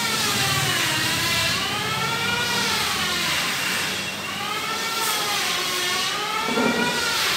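Factory machinery running: a whining tone with many overtones that slowly rises and falls in pitch every two to three seconds.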